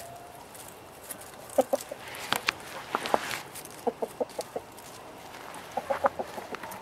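Chickens clucking in three short runs of low clucks, with a few sharp clicks in between.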